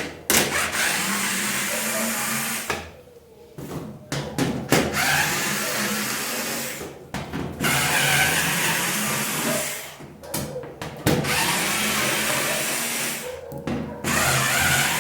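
Cordless screwdriver running in several runs of a few seconds each with short pauses between, backing out screws.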